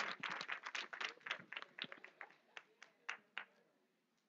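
Audience applause thinning out to a few scattered hand claps and dying away about three and a half seconds in.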